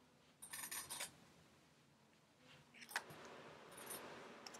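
A short, soft rubbing rustle near the start, then near silence. About three seconds in comes a single click, followed by a faint steady hiss.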